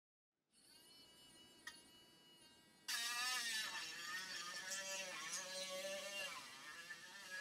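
Dentist's drill whining faintly and steadily with a high, many-toned pitch. About three seconds in it turns suddenly much louder, and its pitch wavers up and down.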